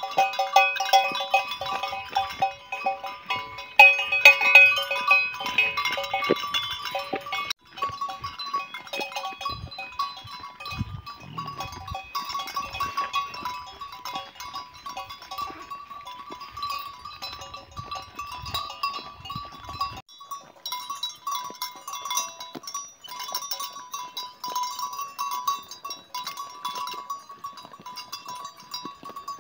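A flock of sheep bleating, with small bells jingling, over background music.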